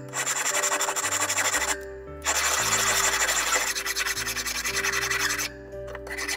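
A hand file scraping along the edge of a silver spoon blank in quick repeated strokes, stopping briefly twice. Background music plays beneath.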